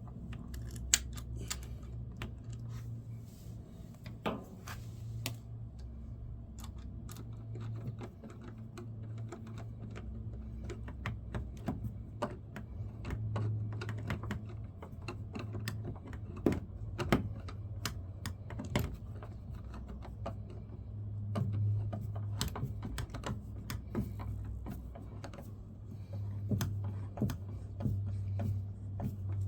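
Small metal hardware and hand tools clicking and tapping irregularly as a car door mirror is fastened in place. A steady low hum runs underneath.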